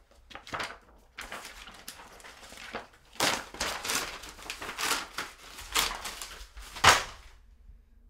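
Paper rustling and crumpling in an irregular run of crackles and swishes, with the loudest crackle just before it stops, about a second before the end.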